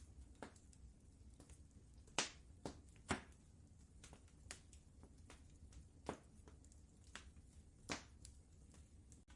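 Wood fire crackling faintly: irregular sharp pops and snaps, a few of them louder, over a steady low rumble.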